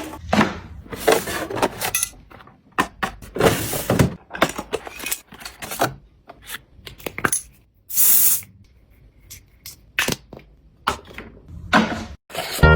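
Household items being handled and set down: an irregular run of clicks, taps and rustles, with a short hiss about 8 seconds in.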